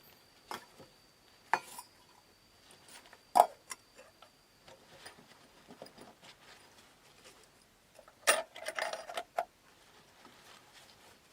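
Scattered light taps and clicks of hard objects being handled, with one sharper knock about three seconds in and a brief burst of clattering knocks near the end.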